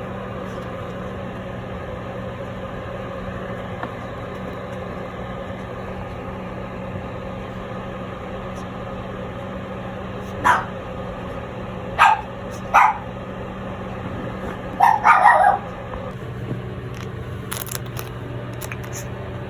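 Toy poodle puppy giving five short barks and yips in the second half, over a steady hum.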